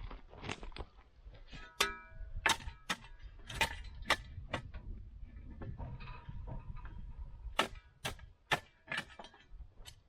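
Irregular sharp clicks and knocks, about a dozen over ten seconds, a few ringing briefly like metal, over a low rumble.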